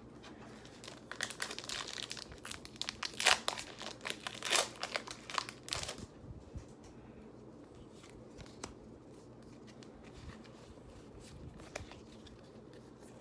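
Pokémon card pack packaging being torn open, crinkling and tearing for about the first six seconds, then only a few faint clicks.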